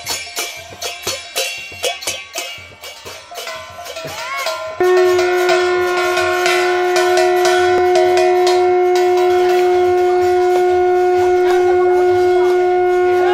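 Rhythmic jingling percussion for the first few seconds. About five seconds in, a conch shell (shankha) starts a single long, steady blast.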